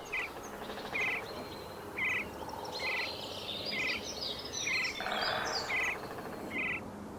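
Woodpecker calling: a short, high, sharp note repeated about once a second, with other small birds chirping in the background.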